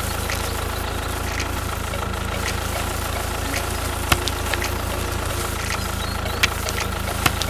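Tractor diesel engine idling steadily with a low rumble. A few sharp clicks stand out, the clearest about four seconds in.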